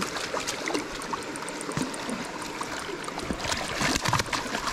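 Shallow stream running over a gravel bed, with splashing from a hooked trout thrashing at the surface as it is played in, heaviest near the end.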